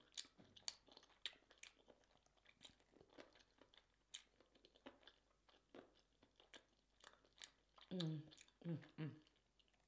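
Close-miked eating of sauce-covered seafood and rotisserie chicken: scattered sharp crunches and smacks of chewing, with a short hummed "mm" about eight seconds in.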